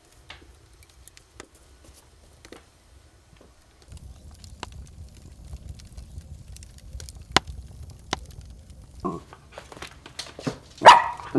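Wood fire crackling and popping in a brick oven, with a low rumble under it and scattered sharp pops. Near the end two short sharp noises, the second the loudest.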